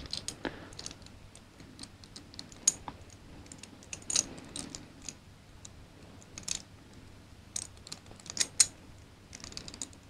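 Light, irregular metallic clicks and taps of the cast-metal pieces of a Hanayama Cast Padlock puzzle knocking and shifting against each other in the fingers as they are worked into line to slide apart, with a few sharper clicks among softer ones.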